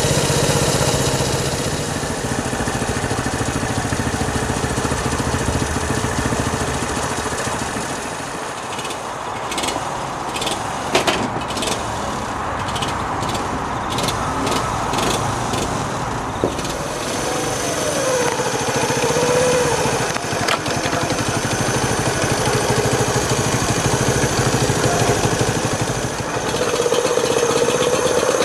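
Honda C90's small air-cooled four-stroke single-cylinder engine running steadily after a cold start, running again now that the carburettor has been cleaned and a sticking float needle freed. A run of sharp clicks sounds over it about a third of the way through.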